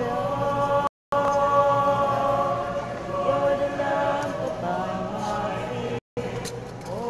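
A group of voices singing a hymn together in long, held notes. The sound cuts out completely twice, briefly, about a second in and again about six seconds in.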